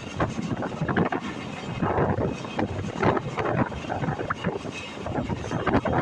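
Express train running at speed: a continuous rumble with irregular knocks and rattles of the coach over the track, and wind buffeting the microphone.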